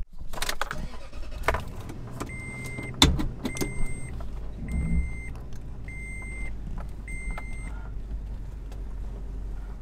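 Vehicle engine running with a steady low rumble, a few clicks and knocks in the first few seconds, then an electronic beep sounding five times, about once a second.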